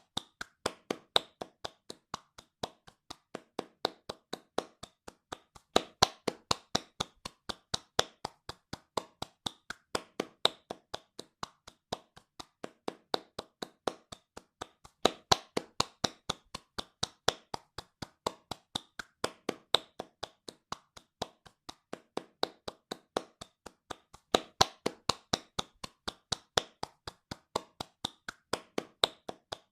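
Hands clapping fast and steadily, about four sharp claps a second. The claps swell and fade in loudness every four to five seconds.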